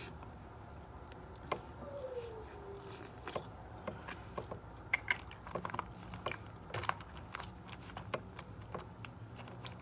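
Eating sounds: corn on the cob being chewed, then fingers with long acrylic nails picking through seafood boil in a clear plastic container, giving many scattered small clicks and taps.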